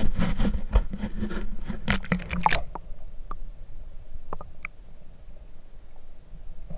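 Camera plunged into a river pool: splashing and scraping for the first two and a half seconds, then the muffled low rumble of water heard from inside the submerged camera housing, with a few faint clicks.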